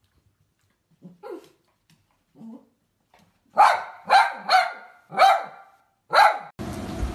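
Small dog barking: a few faint soft woofs, then five loud barks in quick succession.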